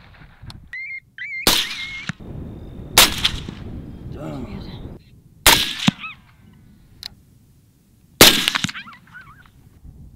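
Four rifle shots from a suppressed 300 HAM'R AR-15, unevenly spaced, each a sharp crack with a short echoing tail. A brief warbling high-pitched call sounds near the start.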